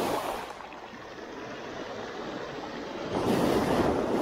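Small waves washing in over shoreline rocks: one surge dies away near the start, and another swells in about three seconds in.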